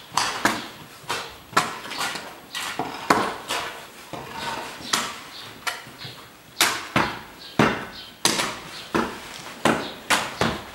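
Repeated sharp knocks or blows at an irregular pace, roughly one to two a second, each dying away quickly.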